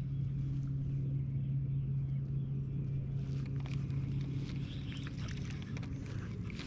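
A boat motor running with a steady low hum that fades out about two-thirds of the way through, with a few light clicks.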